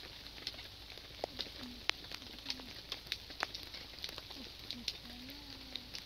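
Wood fire crackling, with irregular sharp pops over a steady hiss.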